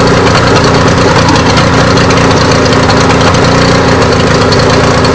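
Suzuki DT65 two-stroke outboard motor idling roughly and stuttering, with no steady idle even though its spark plugs and water impeller are new.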